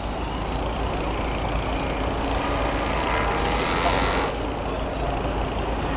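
Heavy vehicle engines running steadily. A louder hissing noise builds from about three seconds in and cuts off suddenly a little after four seconds.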